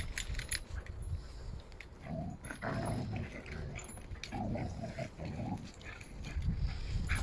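Dogs play-fighting, with low growling grumbles in two rough bursts, about two seconds in and again around four to five seconds, among scattered scuffs of paws on dirt.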